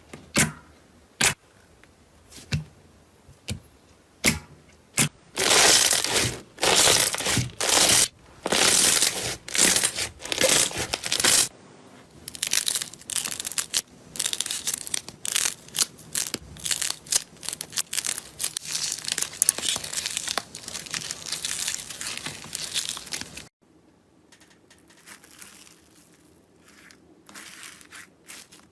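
Slime being played with by hand: sharp single pops about a second apart, then long stretches of dense crackling and crunching, and a cut to quieter crackles near the end.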